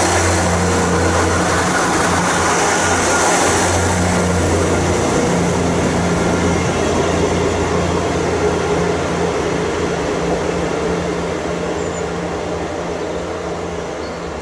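Diesel train running with a steady low engine hum and a broad rushing noise, slowly fading.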